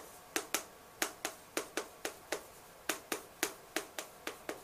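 Chalk clicking against a blackboard as words are written by hand: a quick, irregular run of sharp taps, about three a second, one for each stroke.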